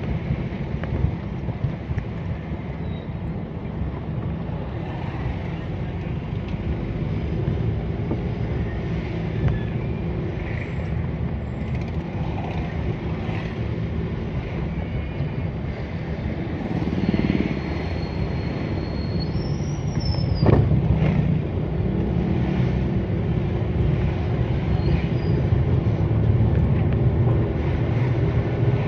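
Steady low rumble of a moving vehicle's engine and road noise, with some wind on the microphone. About twenty seconds in, a thin high tone sounds for a couple of seconds and ends in a sharp click.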